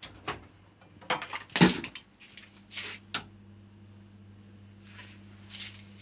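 Clicks and knocks of a repaired plastic extension board being handled and plugged into a socket, the loudest knock about a second and a half in. A low steady hum follows from about two seconds in.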